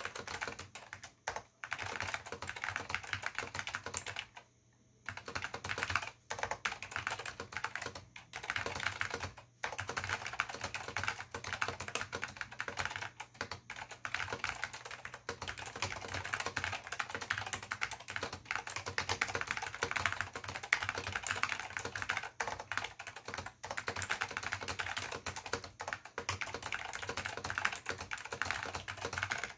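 Continuous typing on an Apple Extended Keyboard II with salmon Alps SKCM switches and Apple Alps keycaps: a dense run of key clacks, with a short break about four to five seconds in.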